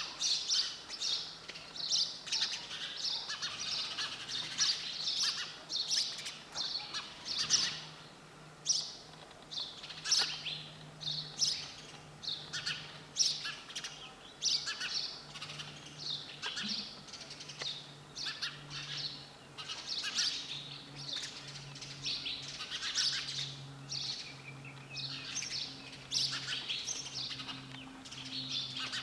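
Sparrows chirping: a continuous stream of short, quick chirps, with a faint steady low hum underneath.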